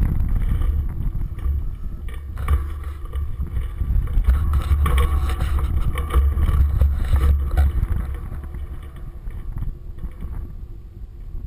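Wind buffeting the microphone of a handlebar-mounted camera: a loud low rumble that gusts strongest in the middle and eases near the end, with a few brief knocks.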